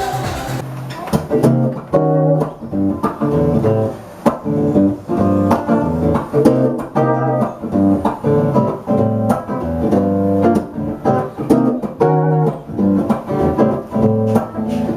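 A guitar played with plucked melody notes over low bass notes in a steady rhythm. It cuts in sharply about half a second in, replacing other music.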